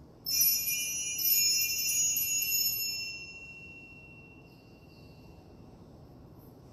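Altar bells rung at the elevation of the chalice after the consecration: a cluster of small bells shaken three times about a second apart, ringing high and fading out by about three and a half seconds in.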